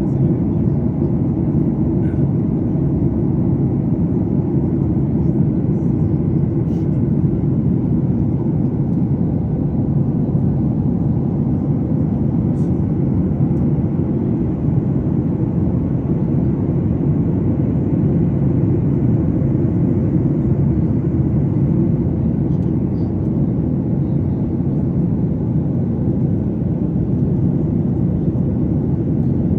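Steady drone of an airliner's engines and airflow heard inside the passenger cabin during the climb: a low, even rush with no change in level.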